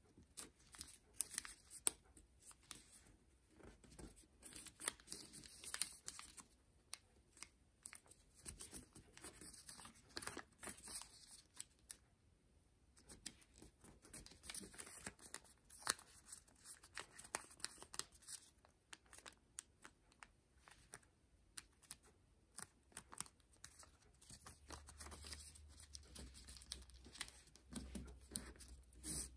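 Kami origami paper being folded and creased by hand: faint, irregular rustles and crinkles, with short sharp clicks as creases are pressed down.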